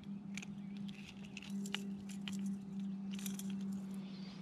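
Small clicks and light rattles of a crankbait's treble hooks and fishing pliers as a small bass is unhooked by hand, over a steady low hum.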